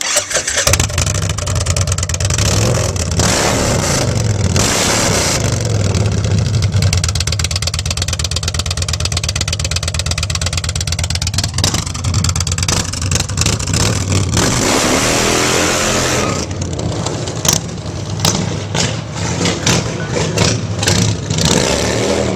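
Indian V-twin motorcycle engine running through a Dirty Bird Stampede Series performance exhaust, loud and revving, with several long throttle swells and then a run of quick, sharp throttle blips in the last few seconds.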